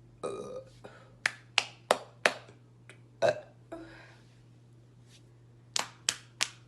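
A short burp at the start, then a series of sharp hand smacks: four in quick succession about a third of a second apart, one more a second later, and three more near the end.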